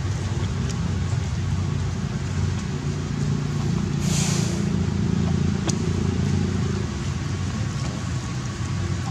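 Steady low rumble, with a short hiss about four seconds in.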